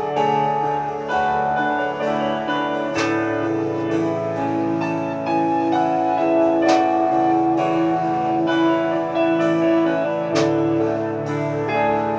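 Acoustic instrumental music led by guitar, its chords ringing on and changing every few seconds.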